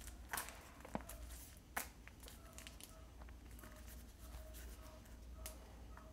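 Fingernails picking and scratching at the sealed plastic lid of a small toy surprise can, faint, with a few sharp clicks in the first two seconds and another about five and a half seconds in, over a faint low hum.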